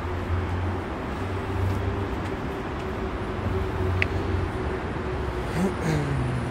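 Steady urban road-traffic noise with a constant low hum. A short high chirp comes about four seconds in, and a tone falls in pitch near the end, as from a passing vehicle.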